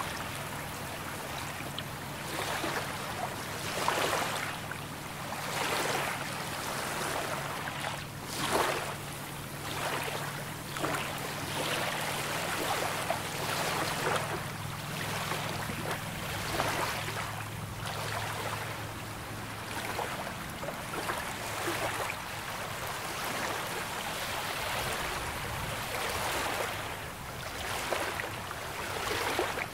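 Small waves lapping and washing ashore on calm sea water, a fresh wash every second or two. A faint low steady hum lies underneath for the first two-thirds, dropping in pitch about twelve seconds in before fading.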